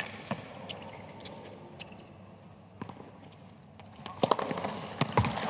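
Tennis ball being struck by rackets during a rally on a hard court: sharp hits a second or more apart, then a quick run of hits about four seconds in as a point is played at the net.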